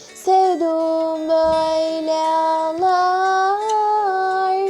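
A girl singing a Turkish song, drawing out long held notes with a slight waver, the pitch stepping up about three seconds in; the voice cuts off sharply at the end.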